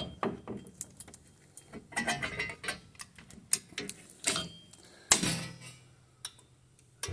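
Irregular metallic clicks and clinks of hand tools on a drum brake's shoe adjuster as it is backed off a few turns to stop the shoes grinding on the drum; a few louder clinks ring briefly.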